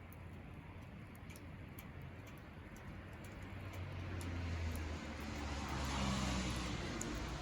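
Wood campfire crackling, with sharp pops scattered throughout. From about halfway a vehicle's engine and rumble grow louder, becoming the loudest sound near the end.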